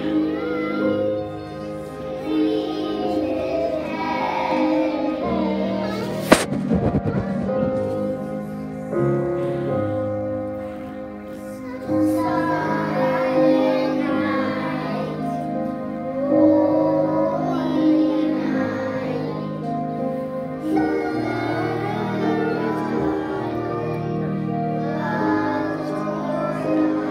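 A recorded song playing, with singing over instrumental backing. A single sharp knock about six seconds in.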